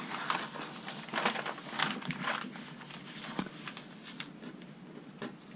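Blue painter's tape and paper being peeled up and handled, crinkling and rustling in short scrapes, then pressed back down flat by hand; a single sharp click about three and a half seconds in.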